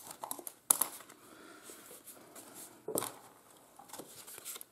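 Punched sheets of thick watercolor paper rustling as they are handled and lined up, with two sharp clicks, one about a second in and one about three seconds in.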